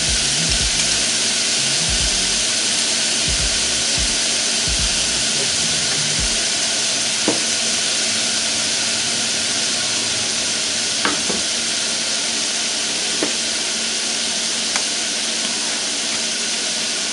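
Chopped onions and garlic sizzling steadily in olive oil in a small saucepan, with a few dull knocks in the first several seconds and a handful of light clicks later.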